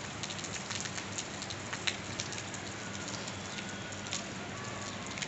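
Steady rain falling, with many separate drops landing as short sharp ticks over the even hiss of the rain.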